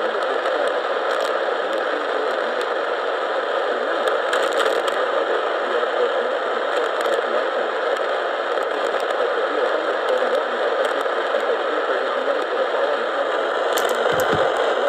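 Steady radio static hiss from a receiver tuned to a station with nothing coming through, with a few faint crackles and a brief low bump near the end.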